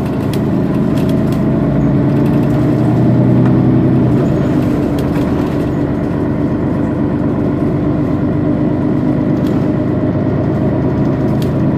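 Mercedes-Benz Citaro Facelift city bus engine idling steadily while the bus stands at a stop, swelling slightly a few seconds in.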